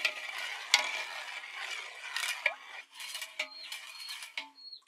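A long metal spoon stirring pani puri masala into water in a metal pot, scraping round the inside with sharp clinks against the pot, the loudest about a second in.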